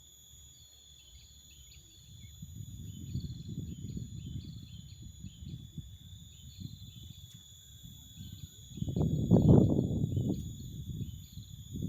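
Steady high-pitched insect drone with a bird giving a run of short, repeated chirps over it. Bursts of low rumbling noise come and go, and are loudest about nine seconds in.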